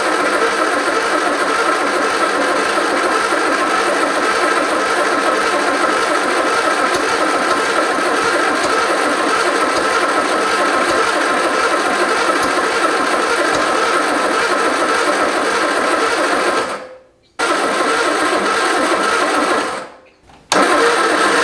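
1973 MG Midget's four-cylinder engine being cranked on the starter motor without catching, a steady whirring churn. Cranking stops briefly about two-thirds of the way in and again near the end. The engine will not start with its distributor just re-seated and the plug wires re-ordered to fix the timing.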